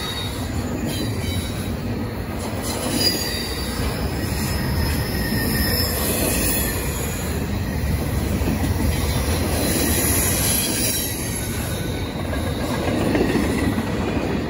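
Double-stack intermodal container train's well cars rolling past at close range: a steady rumble of steel wheels on rail. Thin, high wheel-squeal tones come and go, mostly in the first half.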